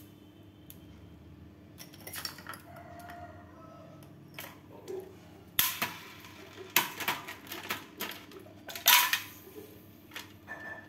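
Shards of a broken drinking glass clinking and scraping against each other and the tabletop as they are picked up by hand: a few faint knocks early, then a run of sharp clinks in the second half, the loudest near the end.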